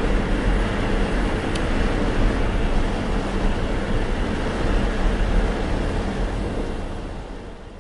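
Steady rumbling mechanical noise with a low hum, fading out near the end.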